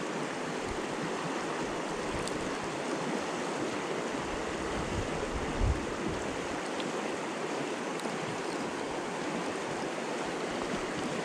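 Provo River water rushing steadily over the streambed, with a brief low thump about halfway through.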